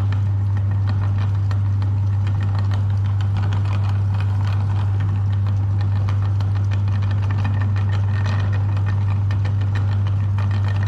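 Meat grinder running steadily: a strong, even low hum with scattered crackling clicks over it.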